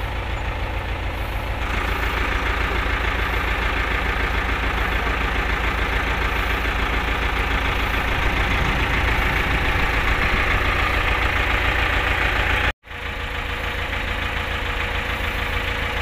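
Self-loader truck's engine idling steadily with an even low throb, with a brief drop-out about thirteen seconds in.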